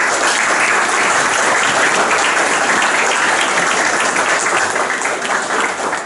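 Audience applauding: many people clapping together, starting abruptly and thinning slightly near the end.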